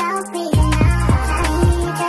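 Background music with a steady beat, deep bass hits and held notes.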